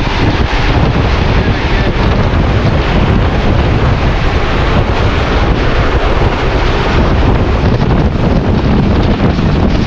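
Hitachi PHA-20 diesel locomotive running with a loud, steady rumble, heavily mixed with wind buffeting the microphone.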